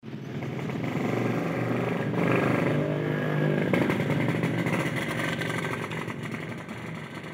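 A vehicle engine running, louder from about two seconds in and fading away toward the end.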